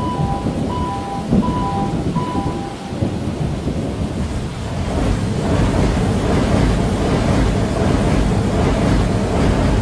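Steady rain with a low rumble of thunder, a rain ambience in the lo-fi soundtrack. For the first three seconds, a few soft alternating music notes sound over it. The rain hiss then thickens from about five seconds in.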